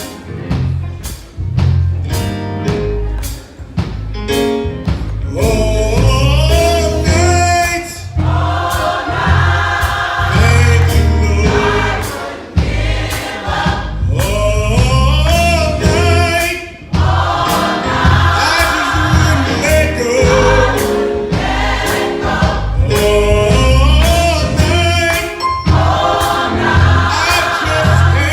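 Gospel choir singing with a band backing it and a strong bass line. The opening few seconds are instrumental, and the choir comes in about five seconds in.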